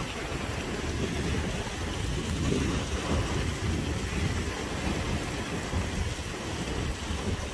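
Steady rush of a hillside stream cascading down its rocky channel, over an uneven low rumble.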